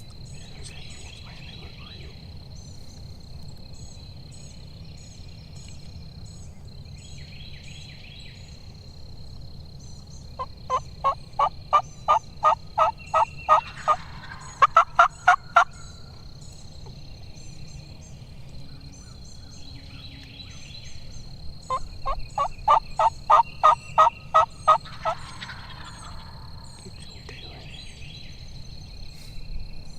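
Wild turkeys calling: two loud bouts of evenly spaced, repeated notes, one about ten seconds in and another a little past twenty seconds, each lasting several seconds. A faint steady high tone and small chirps sit in the background.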